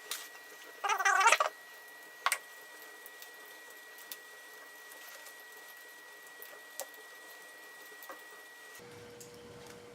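A short, squeaky, pitched sound about a second in, then a sharp click and scattered small clicks and taps from handling the pipe parts.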